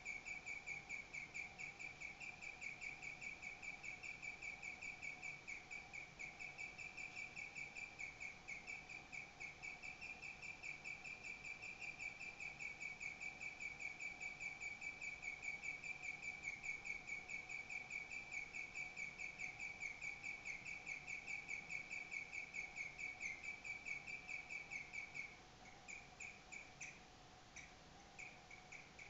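A pet animal's chirping song: rapid, evenly repeated high chirps on one pitch, going on steadily, then breaking into scattered single chirps near the end.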